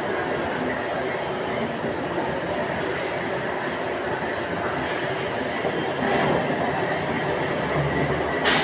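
Steady mechanical running noise with a sharp click near the end.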